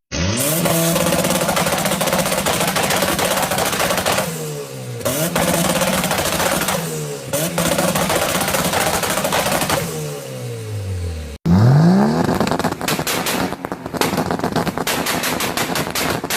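A car engine revved hard three times, its pitch climbing and falling each time. After a brief break, another rev climbs and is followed by a rapid string of sharp exhaust pops and crackles.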